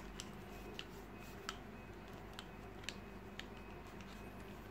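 Faint, irregular light clicks and ticks from hard-plastic over-ear headphones being handled, their ear cups turned in the hands, about six in all over quiet room tone.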